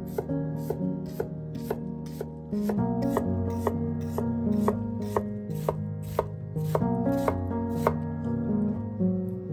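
Kitchen knife dicing an onion on a wooden cutting board: a steady run of crisp chops, about two a second, each blade stroke cutting through onion and knocking on the wood.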